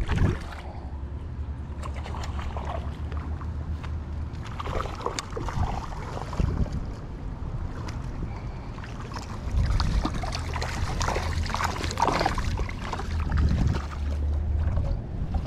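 Wind buffeting the camera microphone in a steady low rumble, with scattered rustling and scraping as fly line and rod are handled, busiest in the middle and latter part.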